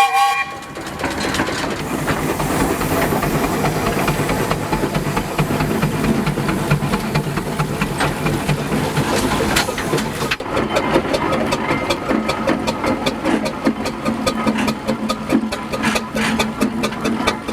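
Steam traction engine running: a steady hiss of steam with a fast mechanical clatter. The end of a steam whistle note cuts off at the very start.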